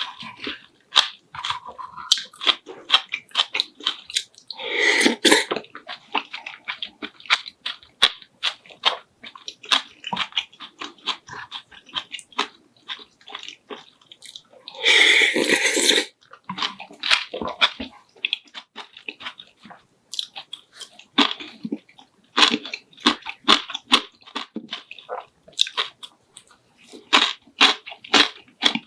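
Close-miked eating: a run of crisp crunching bites and wet chewing, many small crackles in quick succession. Two louder, longer rushing sounds, each about a second long, come about 5 and 15 seconds in.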